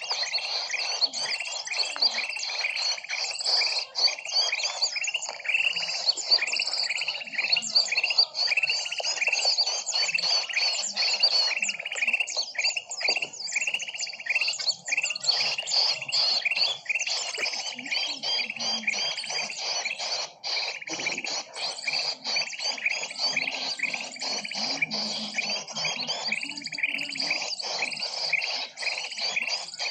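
A dense chorus of many small birds chirping rapidly and without pause, their short downward chirps overlapping: a bird-lure (pikat) recording used to draw in small birds.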